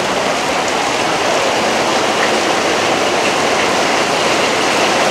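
Heavy tropical-storm downpour: a steady, dense hiss of rain coming down hard.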